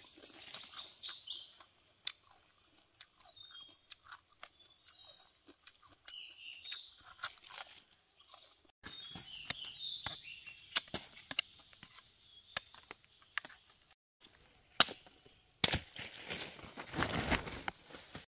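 A machete knocking and slicing at bamboo shoots as their husks are stripped off, a scattered series of sharp knocks, with small birds chirping in between. Near the end a loud rustle of a woven plastic sack and dry bamboo leaves as the shoots are packed in.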